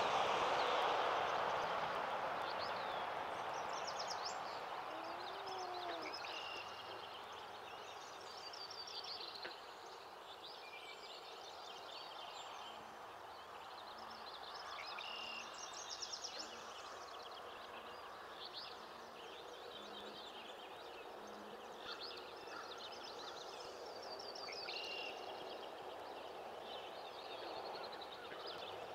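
Dawn chorus of several songbirds singing from the lakeshore woods, many overlapping trills and warbles. A steady wash of noise under it fades away over the first several seconds.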